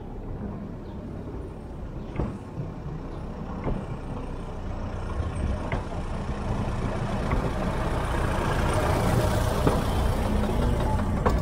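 Ford Model T rail car approaching along the track and passing right overhead, its four-cylinder side-valve engine and running gear growing steadily louder. A sharp click sounds every second or two.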